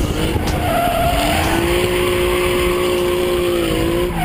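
Ford Mustang SVT Cobra's V8 engine running under power, heard from a camera mounted on the car over road and wind noise. Its pitch climbs over the first second and a half, then holds steady, rising slightly just before the end.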